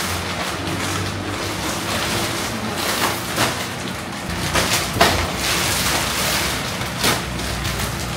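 Plastic packaging rustling and crinkling as plastic-bagged bundles of clothing are handled and pulled from a plastic-wrapped bale, with a few sharper crackles.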